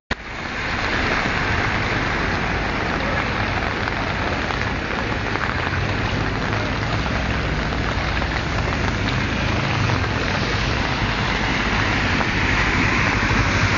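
Heavy rain falling steadily, a continuous hiss, with a low engine hum underneath.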